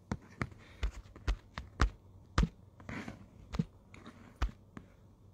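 A dozen or so irregular sharp taps and knocks close to the microphone, some with a low thump, like fingers tapping or bumping the phone or the table it rests on. A faint murmur comes between them around the middle.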